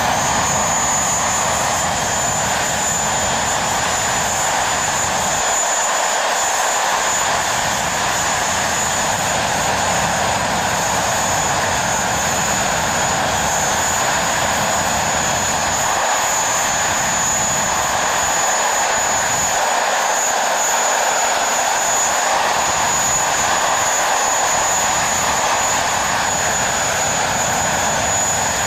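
A BAC Lightning F.6's single running Rolls-Royce Avon turbojet, running steadily on the ground without afterburner: an even jet roar with a constant high whine over it.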